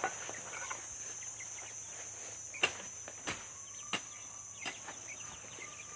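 Steady high-pitched insect drone over rural ambience, with four sharp clicks or snaps about two-thirds of a second apart in the middle, and a few faint bird chirps.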